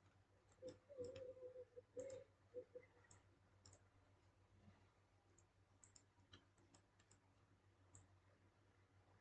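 Faint, irregular clicking of a computer mouse, with a few louder muffled knocks between about one and three seconds in.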